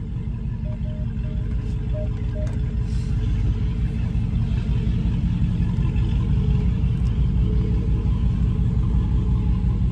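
Car's V8 engine idling and creeping at low speed, heard from inside the cabin as a steady low rumble that grows slightly louder. Four short beeps sound between about one and two and a half seconds in.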